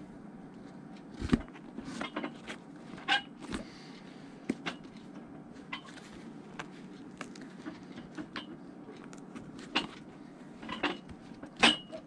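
Hand-stitching a new welt on a leather cowboy boot: irregular clicks, taps and short rasps as the awl and thread are worked through the leather, over a steady low hum. The loudest knocks come about a second in and near the end.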